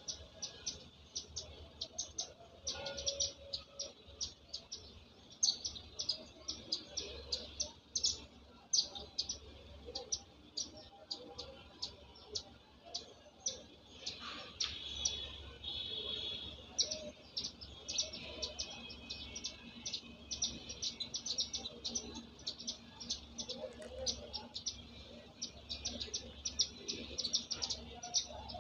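House sparrows chirping: a dense, continuous run of short, sharp chirps, several a second, with barely a pause.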